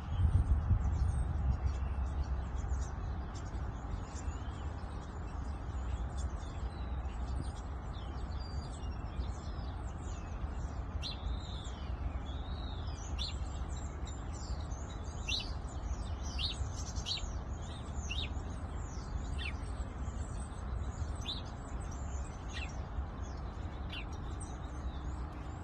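Songbirds chirping and twittering in quick, short high notes, busiest in the middle, over a steady low rumble.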